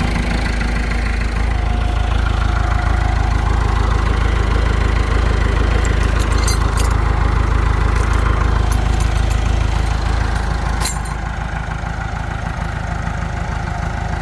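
Kubota U55-4 excavator's diesel engine idling steadily, with a few sharp clicks in the middle; the engine gets a little quieter about three-quarters of the way through.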